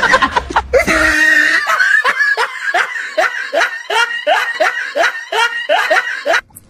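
A person laughing hard in a rapid, even run of short 'ha' pulses, about three a second, stopping shortly before the end.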